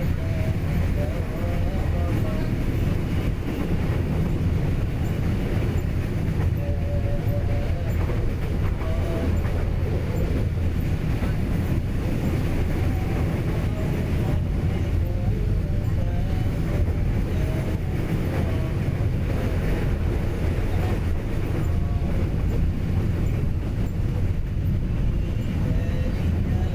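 Train running along the railway: a steady, unbroken low rumble.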